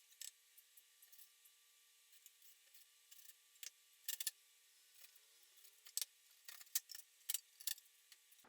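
Faint, scattered light clicks and taps of small hard objects being handled, irregular and a dozen or so in all, most of them in the second half.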